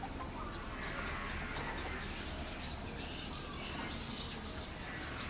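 Birds chirping in short, high calls over steady outdoor background hiss.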